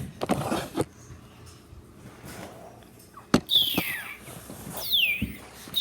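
Rustling handling noise and a sharp click, then two high squeaky chirps, each sliding down in pitch, in the second half.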